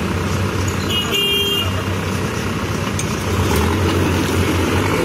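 Manitou backhoe loader's diesel engine running steadily, with a vehicle horn tooting briefly about a second in.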